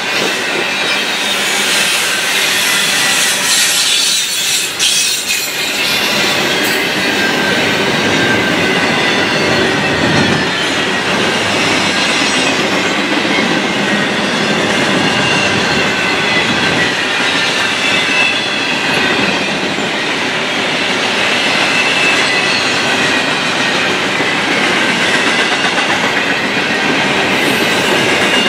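Double-stack container train cars rolling steadily past: a continuous noise of steel wheels on rail, with a high wavering wheel squeal over it.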